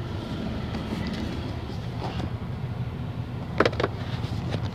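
Steady low rumble of engine and road noise inside a moving car's cabin, with a few sharp clicks near the end.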